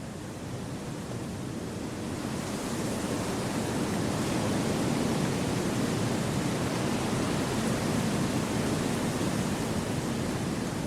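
Wind rushing through forest trees, a steady hiss that swells over the first few seconds into a fuller gust and then holds.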